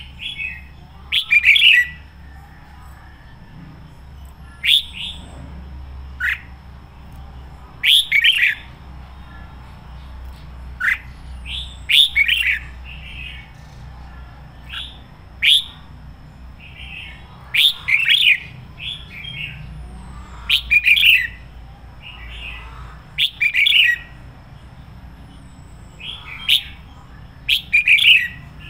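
Red-whiskered bulbul singing loud, short whistled phrases, one every two to three seconds.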